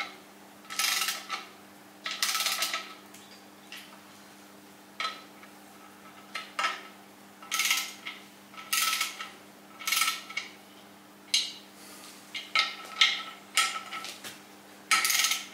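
Ratchet wrench clicking in short strokes, about a dozen bursts a second or so apart, as the clutch pressure-plate bolts are tightened down onto the flywheel a little at a time. A steady low hum runs underneath.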